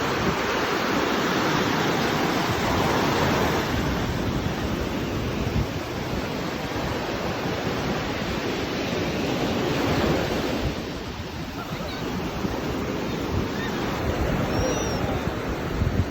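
Steady rush of waves washing onto a shore, swelling and easing, with wind buffeting the microphone.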